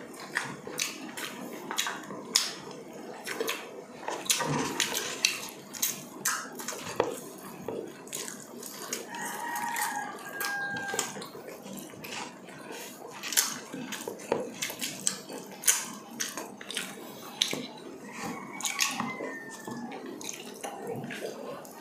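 Close-miked wet eating sounds: lip smacking, chewing and sucking as two people eat yellowfin tuna with their fingers, with many sharp mouth clicks. A short pitched mouth sound comes twice, about ten seconds in and near the end.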